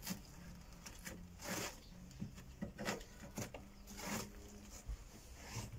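Sealed chipboard flooring being picked apart and pulled up by hand: faint, scratchy scrapes and crumbling, a short rasp about once a second.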